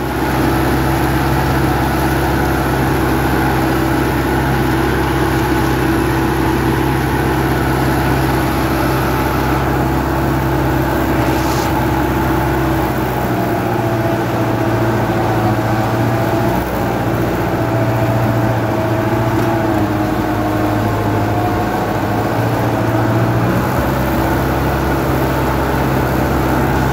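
Sonalika 75 hp tractor's diesel engine running steadily, heard from the driver's seat while it works the field with a 4-ft rotavator. Its note shifts a little after about halfway and settles back near the end, as the tractor turns at the end of the bed.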